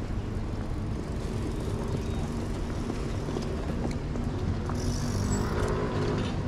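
City street traffic noise: a steady low rumble of road vehicles, with a brief higher hiss about five seconds in.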